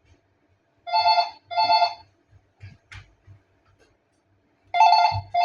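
A phone ringing in a double-ring pattern: two short rings, then a pause of a few seconds, with a second double ring starting near the end. Faint low knocks are heard between the rings.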